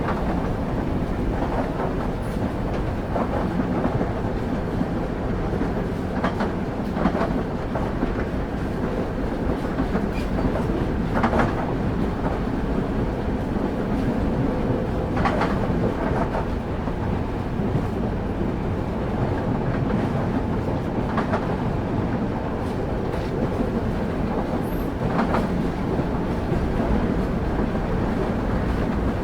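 Railway carriage wheels running on the track, heard from on board as a steady rumble. Every few seconds there is a sharp clack as the wheels pass over rail joints.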